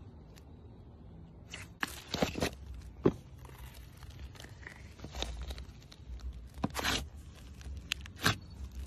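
Clear, glossy slime squeezed and pressed by hand, giving irregular sticky clicks and crackling pops, with a few sharper snaps.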